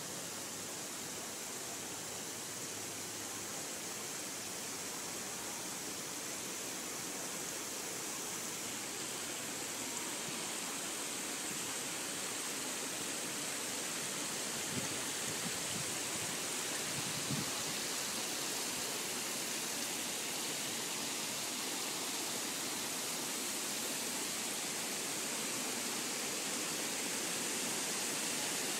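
Water running over the tiers of a fountain pool: a steady rushing wash that grows gradually louder, with a couple of faint knocks around the middle.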